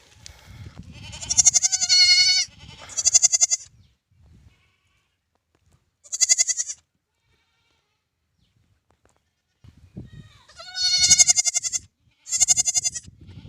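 Newborn lamb bleating: five high, quavering bleats, the first and fourth longest, with pauses between them.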